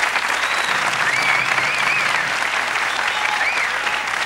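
Studio audience applauding, a dense steady clapping, with a few high voices cheering over it.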